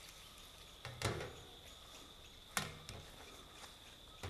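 Two short knocks about a second and a half apart as plates are set down on a large aluminium pot lid, over a faint steady high insect drone.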